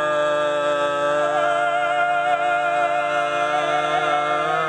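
A man singing one long held note in a mock-operatic style, steady at first and then wavering slightly about a second in, before it cuts off suddenly at the end.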